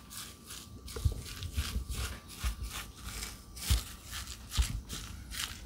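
A silicone spatula stirring and scraping a thick mayonnaise and breadcrumb mixture in a small glass bowl, in short repeated strokes with soft thuds.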